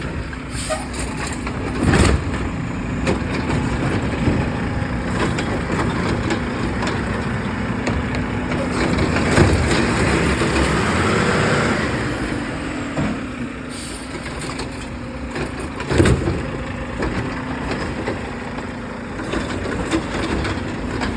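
Garbage truck running steadily, with two loud bangs, one about two seconds in and one near the end, and a hiss that swells and fades in the middle.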